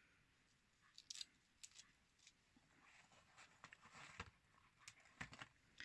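Faint, scattered clicks and light taps of mechanical pencils being picked up and set down.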